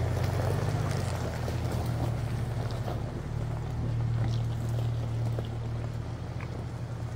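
Ford Bronco driving: a steady low engine and road drone with scattered small clicks and rattles.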